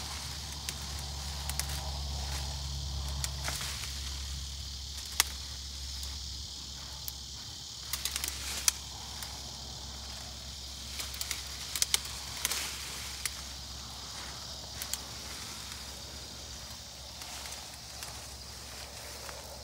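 Leafy branches rustling, with twigs cracking and snapping in sharp irregular clicks, as a whitetail buck rubs his antlers in a hung branch to strip the velvet. A steady high insect drone sounds throughout.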